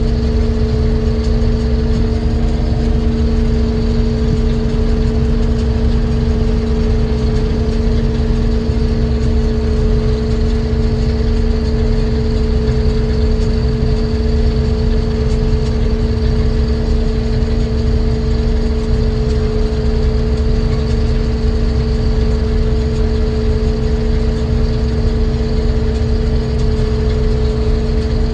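Combine harvester running at a steady speed: a constant engine drone with two strong steady hum tones over a low rumble, unchanging throughout.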